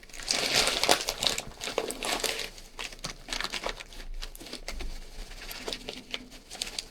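Crinkling and rustling of a flour bag as flour is measured out, with light scrapes and taps, loudest in the first couple of seconds and then lighter.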